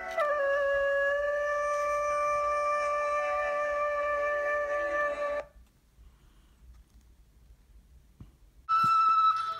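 Background music: one long held, steady note that breaks off a little past halfway into about three seconds of near silence, then a new note starts near the end.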